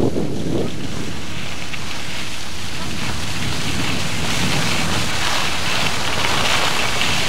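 Steady wind noise buffeting the microphone, a rushing hiss with a low rumble that grows brighter and louder about four seconds in.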